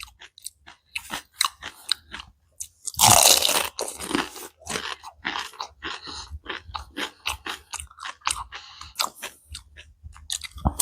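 Close-up chewing and crunching of food in a person's mouth, a run of small crackles with louder crunchy bites about three seconds in and again at the end.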